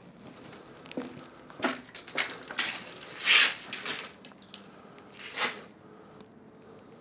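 Footsteps crunching and scuffing on a gritty, debris-strewn concrete floor: a few uneven steps, the loudest about three seconds in.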